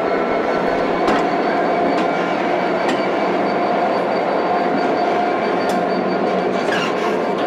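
EWS Class 66 diesel locomotive, with its EMD two-stroke V12 engine, running steadily as it hauls a train of coaches slowly past, with a few light clicks of wheels over rail joints.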